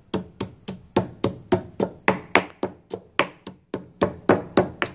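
Stone pestle pounding galangal in a granite mortar: steady, sharp knocks of stone on stone through the food, about three strokes a second.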